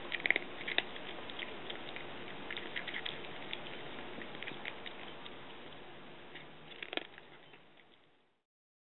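A cat crunching dry kibble from a glass bowl: irregular crisp crunches and clicks, with one sharper click about seven seconds in. The sound fades out just before the end.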